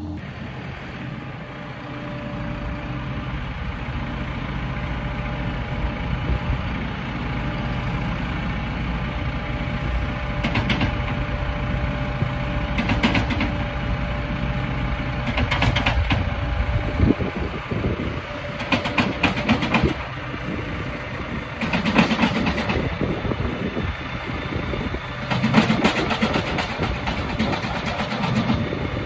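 Diesel tractor engines running steadily beside a tractor-drawn feed mixer wagon while a Massey Ferguson's front loader tips feed into the mixer. About six bursts of rattling noise come through, the loudest near the end, as feed pours from the loader bucket into the mixer.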